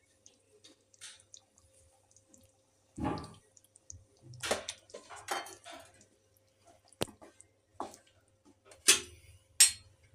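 Wooden spatula stirring thick, creamy curry in a stainless steel pan: irregular scrapes and wet squelches, with a few sharp knocks against the pan in the second half.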